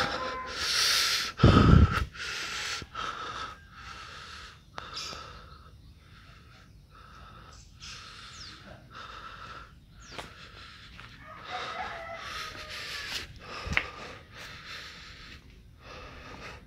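Close rustling and breathing-like noise on a phone microphone as someone climbs down from a truck, with a heavy thump about a second and a half in as they land on the ground.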